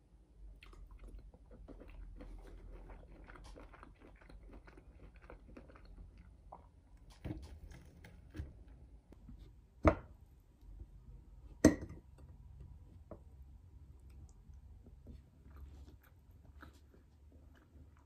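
Close-up chewing and mouth sounds of someone eating, with a fork clinking sharply on a ceramic plate a few times; the two loudest clinks come near the middle.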